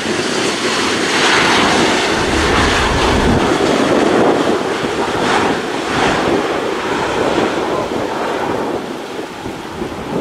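Airbus A320's jet engines running as the airliner rolls along the runway after landing: a loud, steady rush of jet noise.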